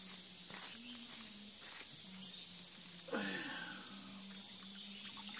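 Steady high-pitched chorus of insects, with a low steady hum beneath it and a brief voice-like sound about three seconds in.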